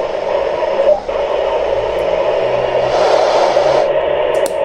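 Amateur radio receiver on the ISS FM downlink hissing with static between calls, with no clear voice coming through. About three seconds in, the hiss turns harsher for under a second.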